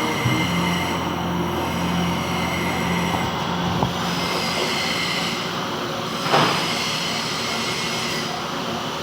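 Metal lathe running steadily while turning a gland, a mechanical hum with a steady whine over it. A sharp tick comes about four seconds in and a brief louder burst of cutting noise about six seconds in.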